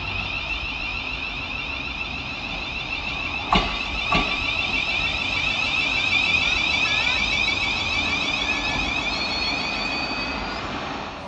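Siemens Class 700 Desiro City electric multiple unit running into a station platform, with a steady high-pitched electric whine from its traction equipment. Two sharp knocks about half a second apart come a few seconds in.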